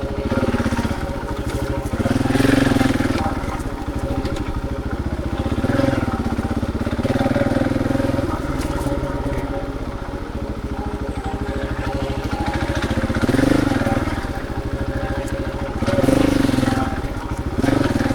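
Husqvarna 701 Enduro's single-cylinder four-stroke engine running at low revs under way, the revs rising and falling in about six short throttle openings.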